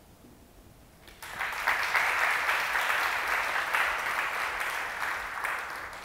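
Audience applauding, starting about a second in and dying away near the end.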